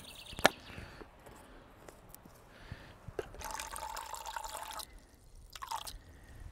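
A single sharp click about half a second in. Then water runs from a hanging water carrier into a cup for about a second and a half, around the middle, with a steady filling tone.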